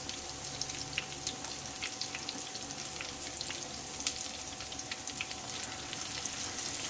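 Marinated chicken pieces deep-frying in hot oil: a steady sizzle with frequent small crackling pops.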